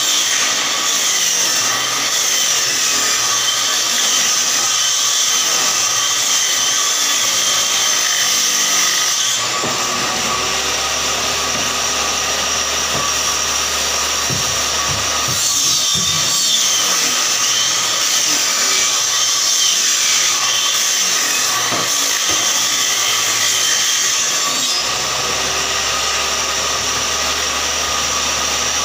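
Table saw running with a steady whine while long wooden strips are fed through it in two long cuts, one at the start and another from about a third of the way in until near the end. The blade's pitch shifts and wavers under each cut, then settles back to the plain running whine between and after the cuts.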